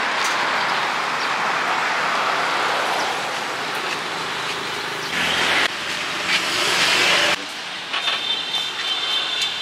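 Roadside street traffic: vehicles passing in a steady rush of noise. A louder passing rush in the middle cuts off abruptly, and a few thin high tones follow near the end.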